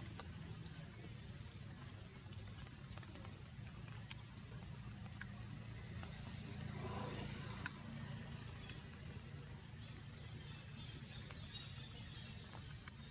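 Rain falling steadily, with scattered drops ticking sharply over a constant hiss and a low rumble. A brief faint voice or call comes about halfway through.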